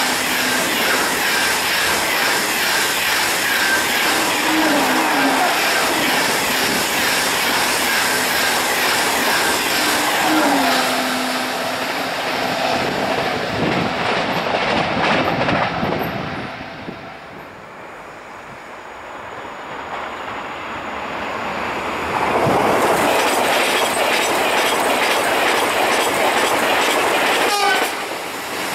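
TGV high-speed train passing at speed: a loud rush of wheels on rails and air, with a low tone that steps down in pitch about every five seconds. The rush fades away after about two thirds, then builds again as more high-speed trains pass near the end.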